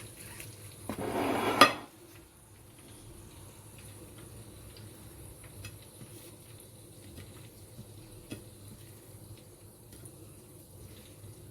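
Dishes and utensils being handled: a short scraping rustle about a second in that ends in a sharp clink, then scattered light clicks.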